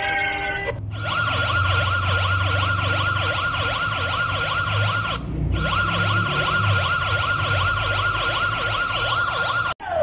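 Emergency-alert-style alarm: a loud steady high tone layered with a fast, repeating sweeping siren warble, broken by a brief gap about halfway and cut off abruptly just before the end. It starts suddenly about a second in, replacing a falling stepped tone.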